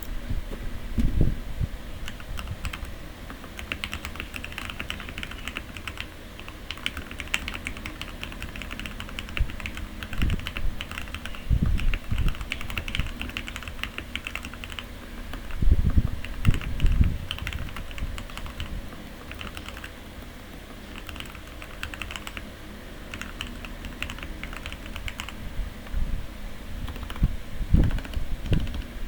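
Typing on a Redragon K617 mechanical keyboard with Akko Jelly switches lubed with Krytox 205g0: fast, continuous keystrokes with a poppy, thocky sound. A few clusters of deeper, louder thuds come about a second in, twice in the middle and near the end.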